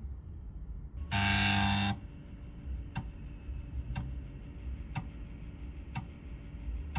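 5.25-inch floppy disk drive's head stepper motor: a loud buzzing "brrrr" of just under a second as the head seeks rapidly back to track 0, about a second in. Then comes a single tick about once a second as the head steps inward one track at a time during a disk read.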